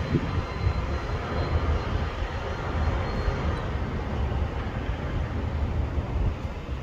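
Cummins ISL9 diesel engine of a 2010 New Flyer D40LF transit bus pulling away, a steady low rumble that fades slightly near the end.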